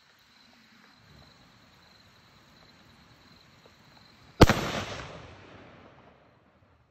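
A single .270 Winchester rifle shot about four and a half seconds in, a sharp crack whose report echoes and fades away over the next second and a half or so.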